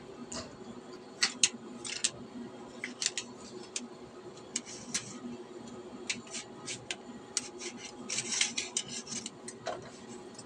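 Thin metal dowsing rods and copper tube sleeves clicking and clinking against each other as they are handled and fitted together: an irregular scatter of sharp ticks, with a quick cluster of them about eight seconds in.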